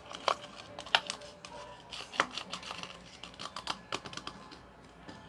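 Irregular clicks and taps of a utensil against a container while slime is being stirred and mixed, a few sharper knocks among lighter scrapes.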